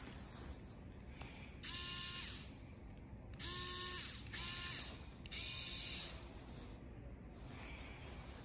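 Wiha electric screwdriver running free with no load in four short bursts, each under a second, its motor whining up to speed and winding down as the switch is pressed and released.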